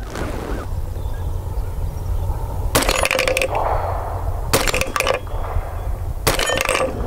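Three gunshots from a 300 Blackout AR pistol with a 4.75-inch Mos-Tek barrel, fired about a second and three-quarters apart, each trailing off briefly.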